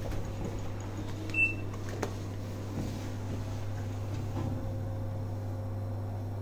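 Elevator car's steady low hum, with one short high electronic beep about one and a half seconds in and a sharp click just after. Later the elevator doors slide shut.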